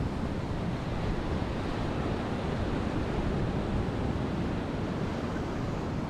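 East Sea surf breaking and washing in a steady, continuous rush, with wind rumbling on the microphone.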